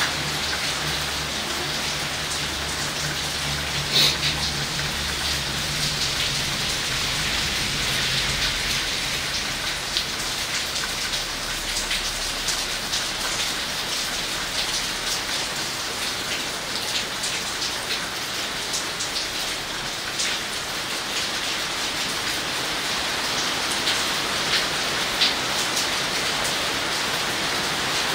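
Steady rain falling on grass and leaves: a constant hiss dotted with individual drops ticking close by, one sharper drop about four seconds in.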